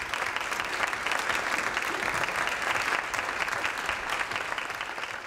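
Audience applauding: dense, steady clapping from many people, easing slightly near the end.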